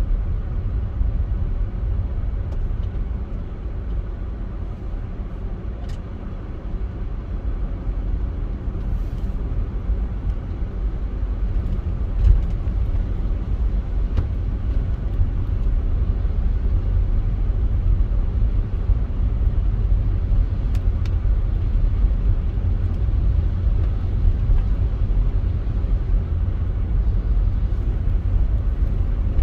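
Steady low outdoor rumble with no clear source, with one brief louder thump about twelve seconds in.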